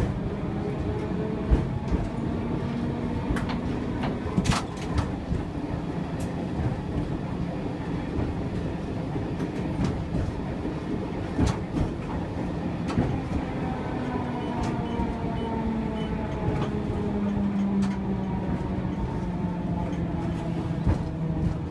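A 1959 Gotha T57 tram running along street track, heard from inside the driver's cab: steady running rumble with a motor and gear whine that rises in pitch in the first few seconds as it picks up speed and falls over the last several seconds as it slows. Scattered sharp knocks come from the wheels on the track.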